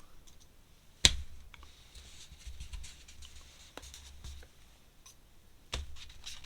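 Drawing materials handled on a desk as a big paintbrush is fetched: a sharp knock about a second in, another near the end, and light ticks and taps between.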